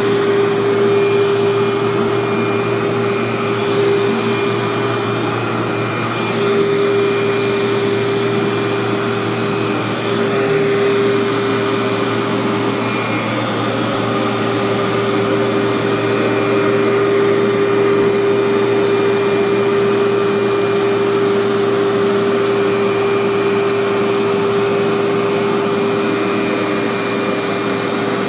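Workhorse vacuum cleaner running steadily while being pushed over short shag carpet: a continuous motor whine with a steady hum, pulling heavy soil out of the carpet.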